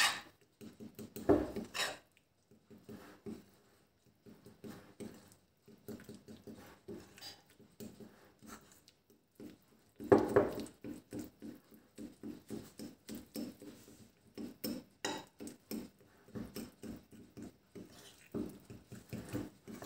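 A metal spoon stirring and beating thin dumpling batter in a ceramic bowl: a run of small clinks and scrapes against the bowl, sparse at first and quicker and steadier from about halfway through.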